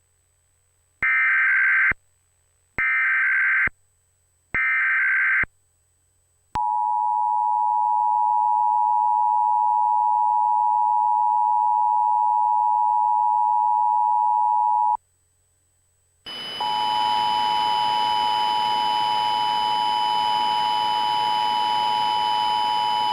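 Emergency Alert System test: three short, harsh digital data bursts (the SAME header), then the steady two-tone EAS attention signal for about eight seconds. After a brief gap, a second station's attention signal starts, the same two tones over hiss.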